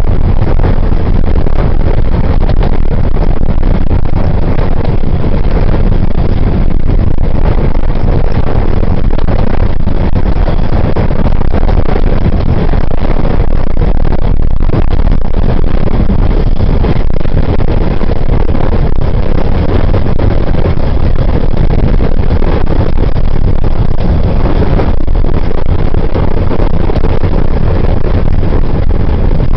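Vehicle driving at speed on a dual carriageway: a loud, steady low rumble of road and wind noise.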